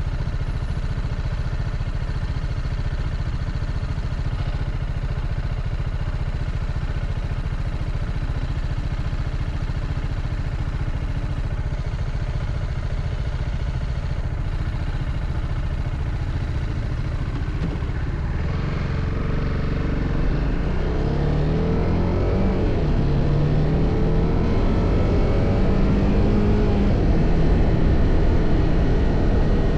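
TVS Apache RR310 single-cylinder motorcycle engine with its stock exhaust, riding with a steady low rumble. About two-thirds of the way in the engine note rises and falls as the bike accelerates, growing louder.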